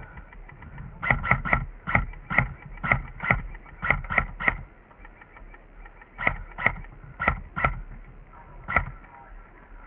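Airsoft gun firing single shots in quick bursts of two to four, about fifteen shots in all with short pauses between groups.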